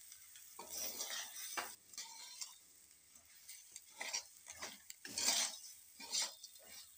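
Puffed rice being stirred and tossed with a metal spatula in a kadai, in irregular scraping, rustling strokes, the loudest about five seconds in.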